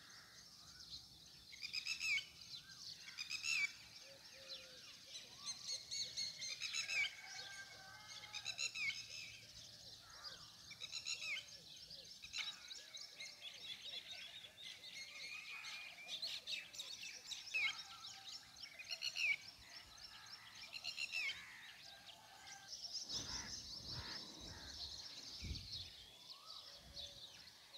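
Many birds chirping and calling over one another, with short repeated chirps throughout. A few low thumps come near the end.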